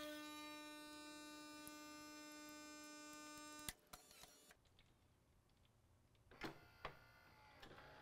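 Faint, steady, high-pitched hum of a Gaggia Babila bean-to-cup espresso machine running its brew cycle, sped up. It cuts off with a click about four seconds in, followed by near silence with a couple of faint clicks.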